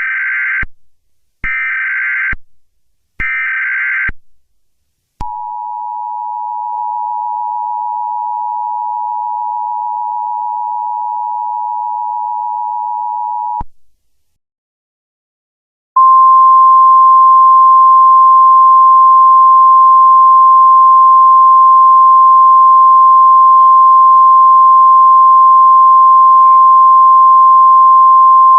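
Emergency Alert System broadcast signals: three short bursts of SAME header data tones, then the two-tone EAS attention signal held for about eight seconds. After a brief gap, a single steady alert tone starts, the NOAA Weather Radio 1050 Hz warning alarm tone.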